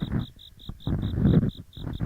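Ear pick scraping with a rough, grinding sound (gori-gori ear cleaning) in uneven strokes close to the microphone, over the steady high chirping of autumn insects pulsing about five times a second.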